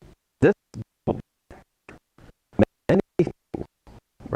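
A lecturer's voice chopped into short fragments, about three a second, with dead gaps between them. The recording is breaking up, leaving the speech unintelligible.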